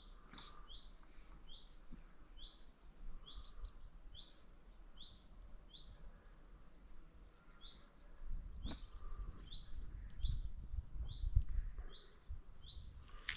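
A small songbird calling over and over with short, high chirps that drop in pitch, about two a second, pausing briefly near the end. A low rumble comes in about eight seconds in.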